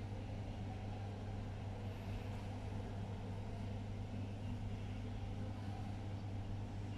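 A steady low hum that does not change, with no distinct clicks or other events.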